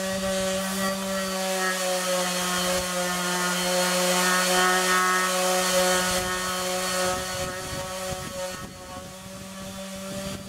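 Makita random orbit sander with 60-grit paper sanding walnut: a steady motor hum under the hiss of the abrasive on the wood. The sound is loudest in the middle and eases off after about eight seconds.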